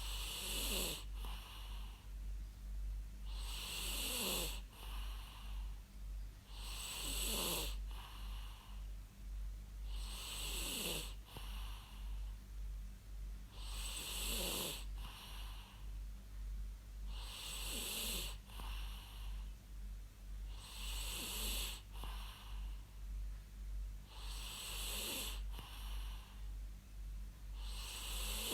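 A person snoring in a steady rhythm, about eight snores, one every three and a half seconds. Each snore has a hiss and a pitch that falls.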